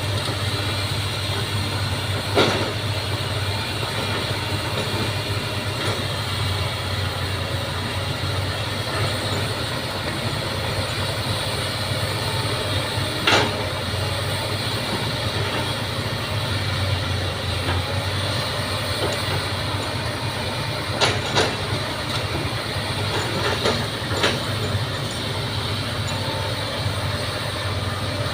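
Bulldozer's diesel engine running steadily, with a few sharp metallic clanks: one a couple of seconds in, one around the middle, and a cluster near the end.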